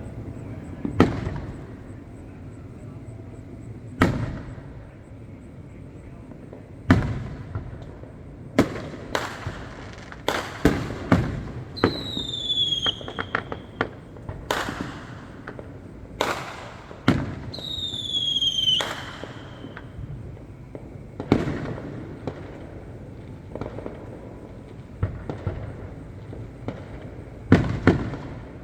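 Aerial fireworks bursting: about sixteen sharp bangs at uneven intervals, some in quick clusters, each trailing off briefly. Twice a high whistle slides down in pitch among the bangs.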